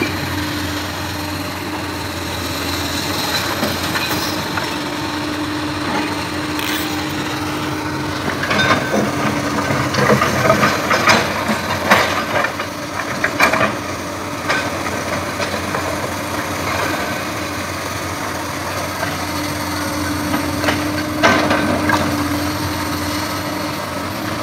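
Komatsu PC200 hydraulic excavator's diesel engine running under load as it swings and moves, with a steady whine that comes and goes. Sharp clanks and knocks of metal and stone come in clusters, mostly between about 8 and 14 seconds in and again around 21 seconds.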